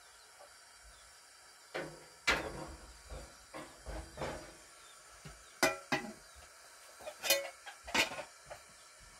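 A series of irregular knocks and clatters, as of hard objects being handled and set down, coming in uneven clusters over several seconds.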